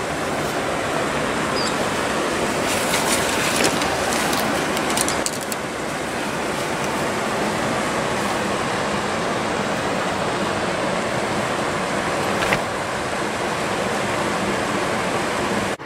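Steady rush of river rapids, an even noise without any pitch. A few seconds in, a short run of scrapes and clicks.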